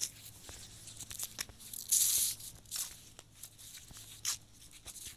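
Short scratchy rustling and scraping noises, several separate strokes, the loudest a brief hiss about two seconds in.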